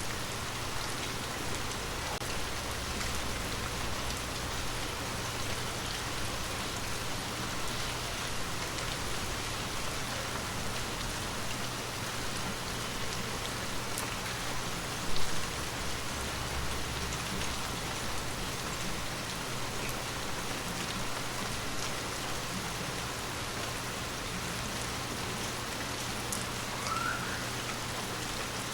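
Water drops pattering steadily on glass, a dense even hiss with scattered small ticks of individual drops. One noticeably louder drop or tap lands about halfway through.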